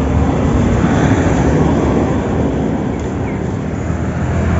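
Honda motor scooter's single-cylinder engine running steadily at low revs.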